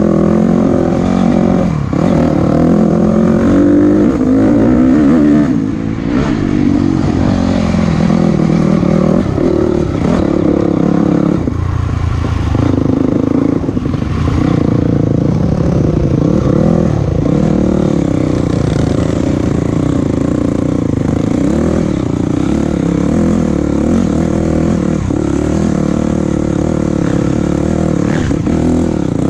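Motor vehicle engine running continuously while driving, its revs rising and falling, with rattling and clatter.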